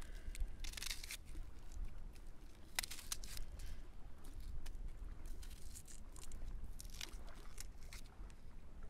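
A knife peeling the dry, papery skin off a small onion, giving irregular crackling and scraping strokes.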